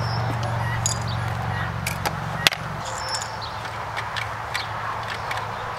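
A steady low machine hum stops with a single sharp click about two and a half seconds in. Small clicks and short high bird chirps are scattered throughout.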